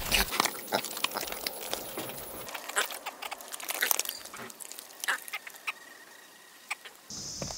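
Scattered short calls from farm animals, coming irregularly through the whole stretch.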